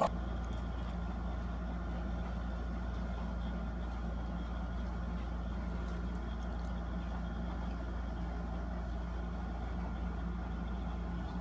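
A steady low hum with a fainter high steady tone over it.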